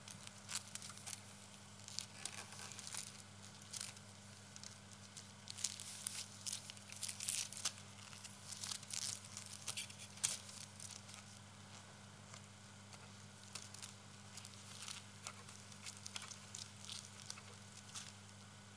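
A long plastic strip being rubbed and pulled by hand, giving irregular crinkling and crackling, busiest in the middle. A steady low electrical hum runs underneath.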